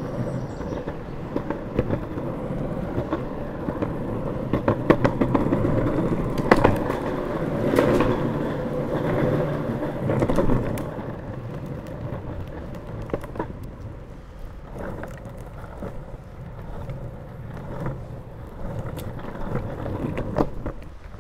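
Longboard wheels rolling on an asphalt path: a steady rumble with scattered sharp clicks over cracks and grit, louder for several seconds in the middle.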